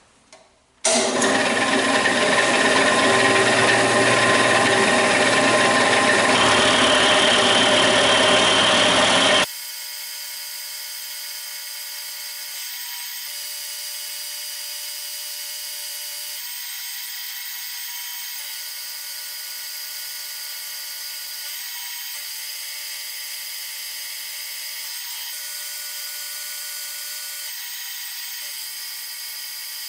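Powermatic milling machine cutting a square bar of cold-rolled mild steel. A loud, harsh cutting noise runs for about the first nine seconds, then gives way abruptly to a quieter, steady machine whine held at a few fixed pitches.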